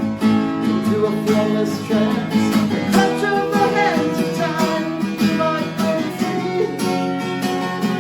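Acoustic guitar strummed and picked in an instrumental passage of a singer-songwriter song, with chords and melody notes ringing together.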